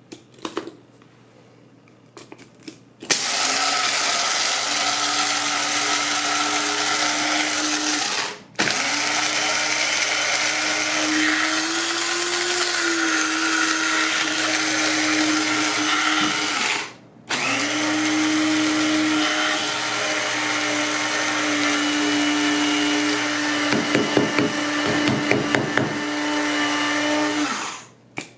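Amazon Basics electric blade coffee grinder grinding coffee beans: its motor runs in three long spells, spinning up to a steady whine each time, with two brief stops between them. A quick rattling comes in a few seconds before the end, and the motor cuts off just before the end.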